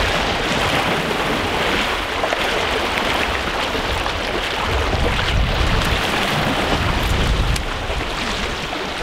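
Steady rushing noise of rain and wind on the microphone, with a low rumble swelling from about five to seven seconds in.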